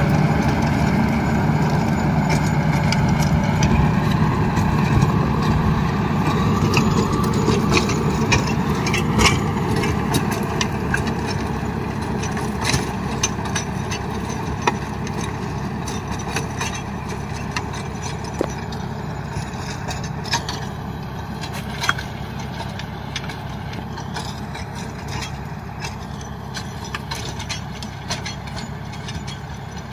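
John Deere 5050 tractor's diesel engine running steadily under load while it drives a rotavator through the soil, with many irregular sharp clicks and knocks from the working tiller. The sound grows gradually fainter as the tractor moves away.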